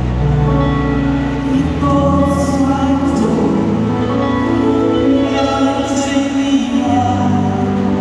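Large youth orchestra of strings and guitars playing a slow piece, with held chords changing every second or two over a slowly moving bass line.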